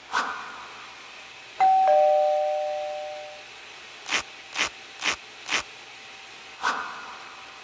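Added sound effects for an animation: a whoosh, then a two-note descending chime that rings out. Next come four quick brush swishes, a paintbrush sweeping milling dust off the clamp frame, and a final whoosh.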